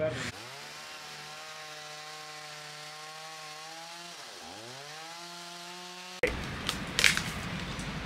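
Chainsaw running at high revs, its engine speed dropping sharply for a moment about four seconds in and then climbing back. It cuts off suddenly after about six seconds.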